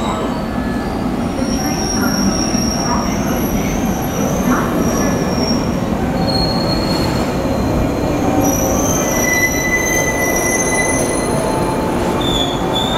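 A JR 103 series electric train pulling into the platform: the rumble of its running gear, with the wheels squealing in several thin, high tones that come and go.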